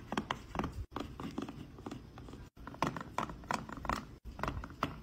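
Toothbrush scrubbing the plastic teeth of a dental model, a run of quick, irregular scratchy strokes.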